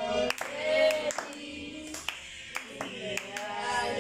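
People clapping, with voices singing at the same time.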